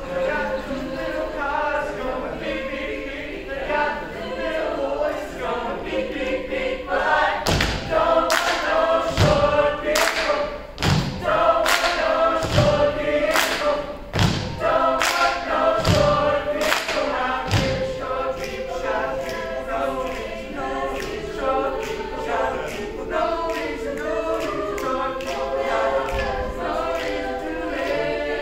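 A mixed-voice high school choir singing a cappella. Through the middle, a run of heavy thumps, about one a second, cuts through the singing, then the voices carry on alone.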